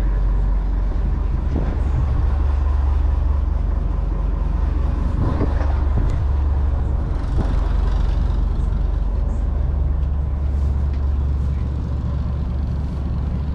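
A dive boat's engines running: a loud, steady low drone, with a few light knocks in the first half.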